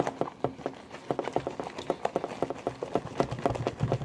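Fluffy slime made of clear glue, shaving cream and contact solution being mixed: quick, irregular wet clicks and squelches, several a second. The slime is still at the mixing stage and not yet ready.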